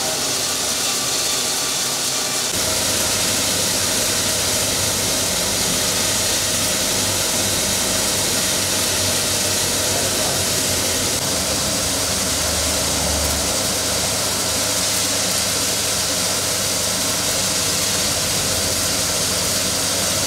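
Roasted-peanut skin-peeling machine running steadily: a loud, even hiss-like rush with a low motor hum beneath it, the hum growing stronger about two and a half seconds in.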